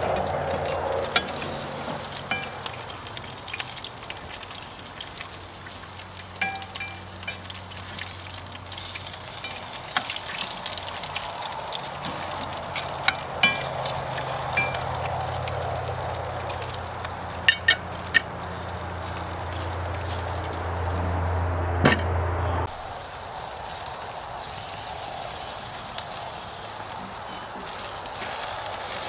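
Burgers and bacon sizzling on a hot charcoal-and-wood grill, a steady frying hiss with scattered sharp pops and crackles.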